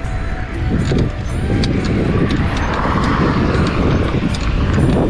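A vehicle passing on the highway, its hiss swelling and fading in the middle, over a steady low rumble of wind on the microphone.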